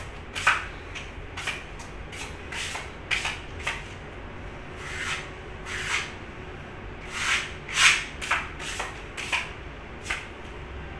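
Hand tool scraping or sanding a painted wall by hand: short, uneven rubbing strokes, about one or two a second, with a few longer strokes, as a patch on leak-damaged wall paint is worked smooth.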